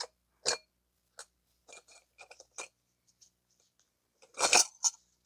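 Light clicks and small metallic clinks of a cut-open oil filter's parts being handled, with a short louder scrape about four and a half seconds in.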